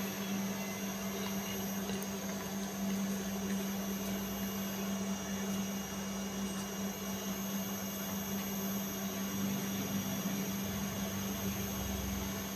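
Steady machine hum in a small room: a low electrical drone with fan noise and a faint high whine, unchanging throughout.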